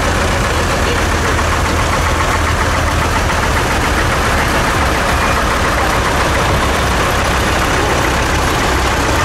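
Diesel tractor engines running steadily at low speed as vintage tractors drive past, a deep low rumble. A large green tractor passes close near the end.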